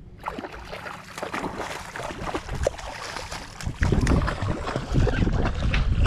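Water splashing and sloshing beside the boat as a hooked redfish is brought alongside. Wind starts rumbling on the microphone about four seconds in.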